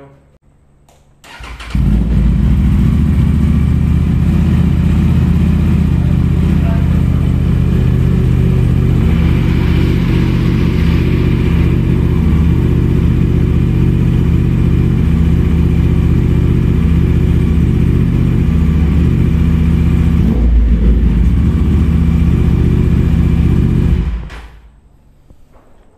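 Aprilia RS457's parallel-twin engine running at a steady idle through a freshly fitted aftermarket full-system exhaust (Akrapovic Evolution replica), loud and even in pitch. It comes in suddenly about a second and a half in and cuts off shortly before the end.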